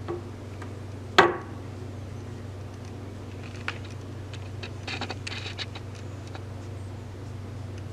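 Small handling noises from hand-painting with a brush: one sharp tap about a second in, and a short patch of light scratching near five seconds, over a steady low hum.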